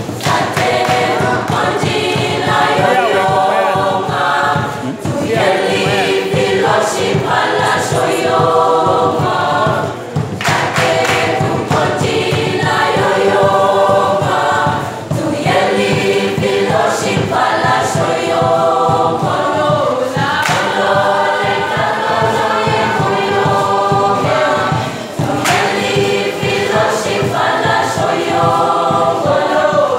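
School choir singing, loud and continuous, with short breaks between phrases about every five seconds.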